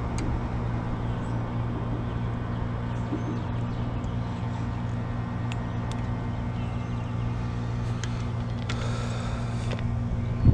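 Steady low drone of road traffic on the highway overpass overhead, with a few faint clicks and a brief hiss about nine seconds in.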